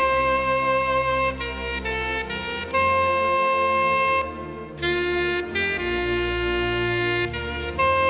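Soprano saxophone playing a slow hymn melody in long held notes over a soft, sustained low accompaniment, with a short breath pause about four seconds in.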